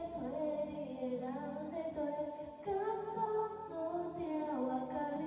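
Background music: a pop song with a female voice singing a melody over soft accompaniment.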